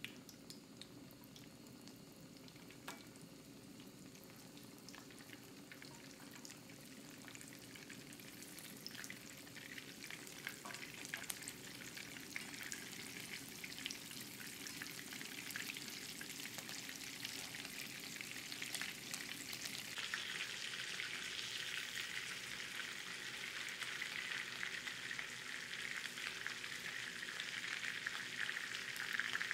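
Beef meatballs frying in olive oil in a nonstick frying pan, a steady crackling sizzle that grows louder as they cook and steps up about two-thirds of the way in. A few light clicks come through near the start.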